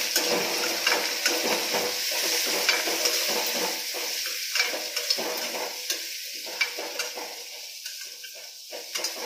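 Sliced bitter gourd and onions frying in oil in a metal kadhai, sizzling steadily while a perforated metal spatula stirs them, scraping and clicking against the pan in irregular strokes.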